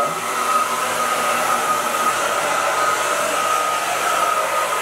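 Handheld hair dryer running steadily to blow-dry a wet puppy: an even rush of air with a constant high whine.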